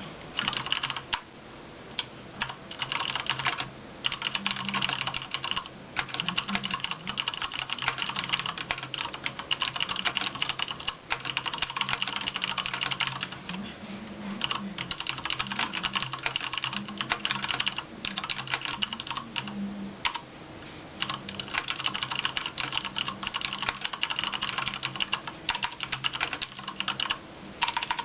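Typing on a Cooler Master MasterKeys Pro M mechanical keyboard with Cherry MX Brown switches and its stock keycaps: a fast, steady patter of keystrokes, broken by a few brief pauses.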